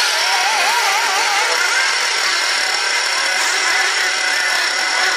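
Several radio-controlled off-road buggies running together, their small high-revving motors rising and falling in pitch as they are throttled.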